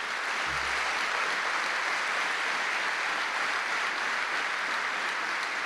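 Large audience applauding, a dense, steady clapping that swells up and holds at an even level.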